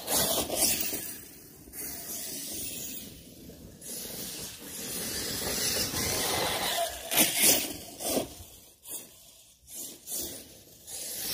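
Arrma Talion brushless RC car driving on loose ground: repeated surges of tyre scrabble and scraping hiss that rise and fall, loudest about a second in and again about seven seconds in.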